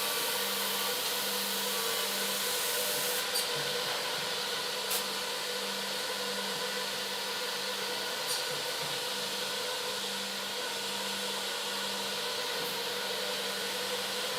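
Minimax ME 40 automatic edge banding machine running: a steady machine noise with a constant hum and a few light clicks.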